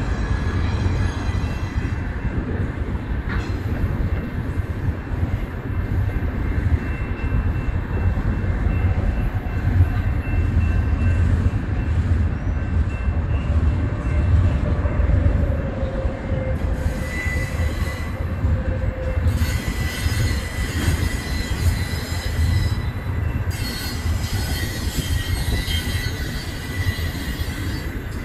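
Double-stack intermodal freight cars rolling past: a steady low rumble of steel wheels on rail, with thin wheel squeals on top. One squeal slides in pitch about halfway through, and a high steady squeal holds over the last third.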